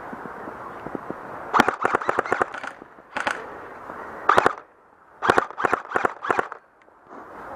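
Airsoft guns firing: a rapid string of about eight sharp shots about one and a half seconds in, a couple of single shots, then about five more spread over a second near the end.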